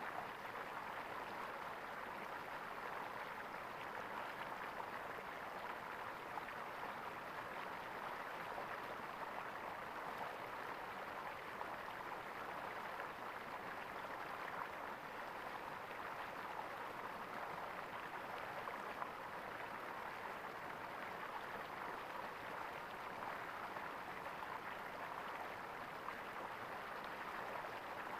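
Small stream of water running and gurgling steadily.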